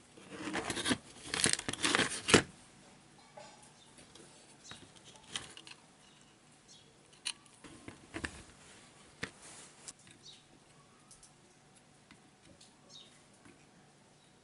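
Rustling and scraping of handled parts for about two seconds, then scattered light clicks and taps. This is small components and hand tools being worked at an electronics bench while a trimmer potentiometer is swapped in a power-supply board.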